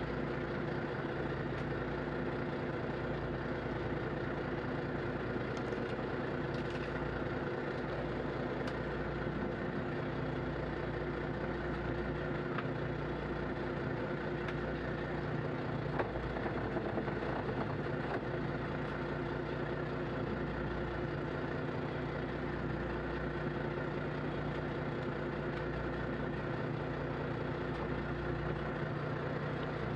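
Small fishing boat's engine running steadily at low revs, an even drone with a faint knock or two partway through.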